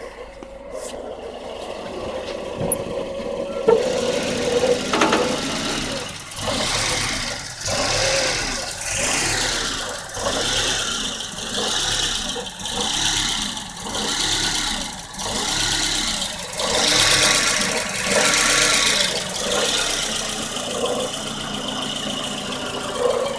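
1994 Volvo 940 engine idling roughly, its speed swelling and dropping in a regular surge about once a second.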